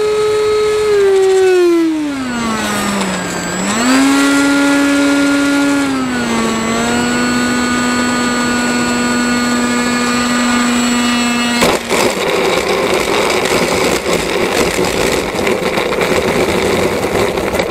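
Electric ducted fan of an RC model L-39 Albatros jet whining as it is throttled back on approach: the pitch drops, rises briefly, then holds steady. About two-thirds of the way through, the fan note cuts off with a knock as the model touches down, and the wheels rattle as it rolls out on the rough concrete runway.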